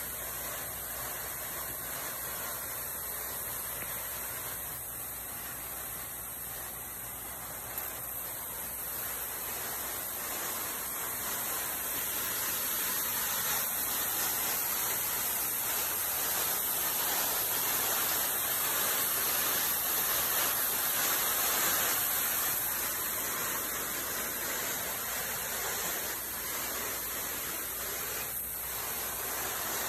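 Steady rush of running stream water, a continuous even hiss that swells slightly in the middle.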